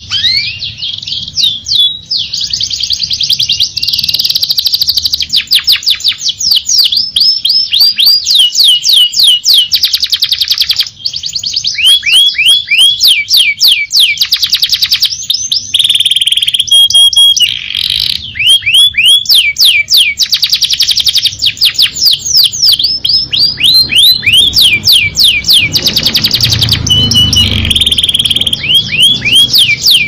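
Domestic canary singing a long, fast song of rolling trills: quick runs of repeated downward-sweeping notes, broken by a few held whistled tones about halfway through and again near the end.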